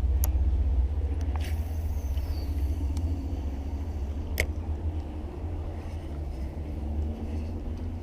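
Steady low rumble throughout, with two sharp clicks, one near the start and one about four seconds later.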